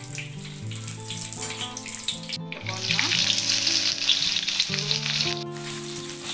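Sliced onions hitting hot oil with tempering spices in a kadai, a loud sizzle rising about two and a half seconds in and easing off near the end, with a spoon stirring them. Background music plays underneath.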